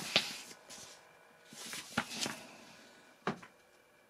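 Paper rustling as a stapled instruction booklet is handled and closed, with a few light ticks and one sharp tap about three seconds in.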